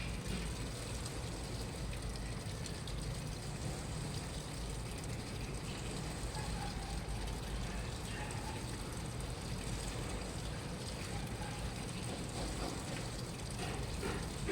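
Washing machine running: a steady low hum from the motor and drum, with light mechanical clatter and some water noise, and a few faint clicks near the end.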